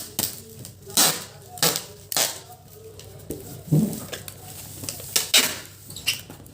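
Irregular short clatters, crinkles and scrapes from hands handling a parcel and its wrapping while it is packed, about a dozen sharp noises spread unevenly.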